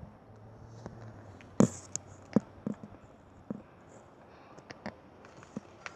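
Irregular light knocks and clicks, about eight of them, the loudest about one and a half seconds in.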